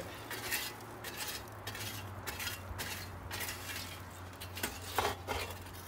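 Long-handled shovel scraping and clinking along the floor of a wood boiler's firebox, raking out ash and coals to keep the gas vents from plugging up. The strokes come irregularly, the loudest scrape about five seconds in, over a steady low hum.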